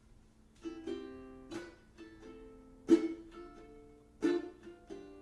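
Plucked string instrument playing a slow chord introduction, a chord struck every second or so and left to ring and fade, the loudest about three seconds in.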